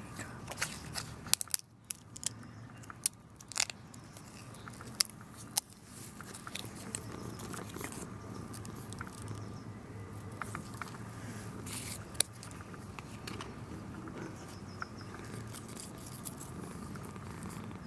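A dry leaf crackling and crunching as a cat bites and chews at it. The sharp crisp crackles come thick in the first third, then turn sparse over a steady low background.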